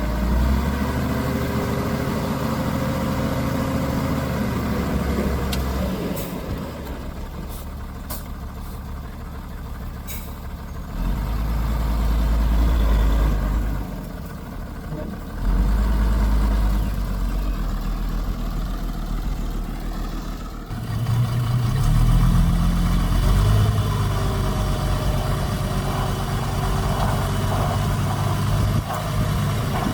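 Heavy diesel engines of a bulldozer and dump truck working, the engine note rising and falling with load in repeated deep swells. A few sharp clanks come about a third of the way in.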